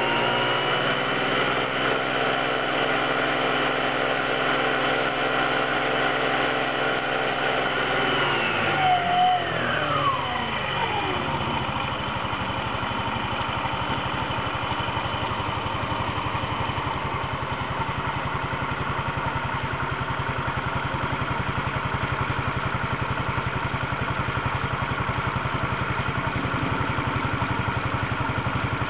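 Baotian scooter's 50cc 139QMB four-stroke single-cylinder engine and CVT transmission, revved up and held at high speed for about eight seconds. The throttle is then let off, and the engine note falls away over a few seconds to a steady idle.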